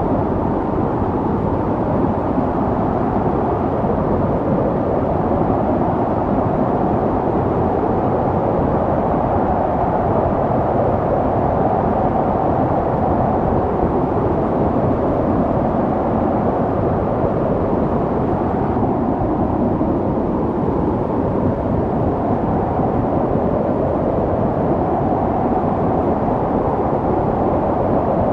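Snowstorm wind blowing steadily as a deep, low rush, swelling and easing slowly.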